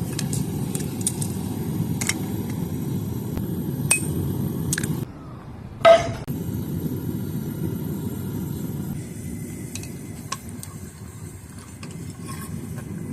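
A hammer striking a steel maker's-mark letter stamp into a 5160 steel knife blade: one loud metallic strike with a brief ring about six seconds in, with a few lighter clinks before it. A steady low rumble runs underneath.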